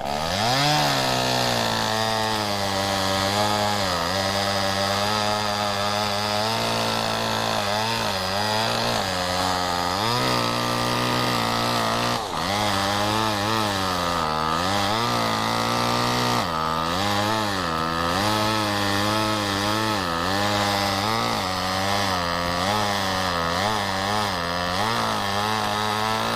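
Vintage chainsaw cutting wood, its engine note dipping under load and recovering again and again. A steady low hum runs underneath.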